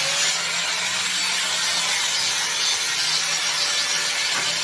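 Power grinder running steadily as it grinds and sands a rough weld on a steel frame bracket, a steady motor hum under a dense grinding hiss.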